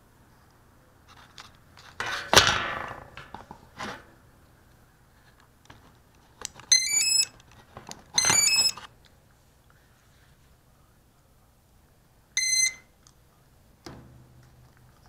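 Handling clatter, then the quadcopter's ESCs play two short multi-note startup tunes and a single arming beep, the kind of tones the motors give when the lipo is connected. A faint low hum picks up near the end.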